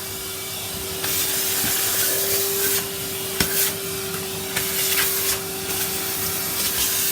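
Vacuum cleaner running with a steady motor whine under a loud rushing hiss of suction; about a second in the hiss grows louder and brighter, and there is one sharp click about halfway through.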